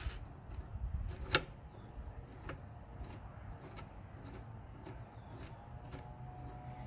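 Faint metal clicks and handling sounds as a jam nut and adjusting screw on a blade-sharpening jig are turned, with one sharper click about a second and a half in.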